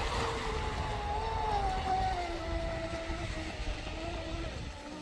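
Electric motor of a carbon fiber RC speedboat whining at speed, its pitch sliding slowly down and fading out near the end, over low wind and water rumble.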